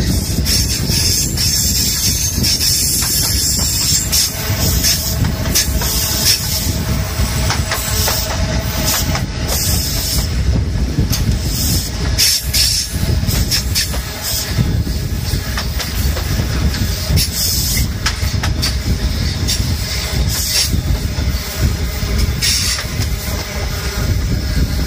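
InterCity 125 High Speed Train running at speed over a bridge, heard from outside the coach side: a steady rumble of wheels on rail with irregular sharp clicks scattered through it.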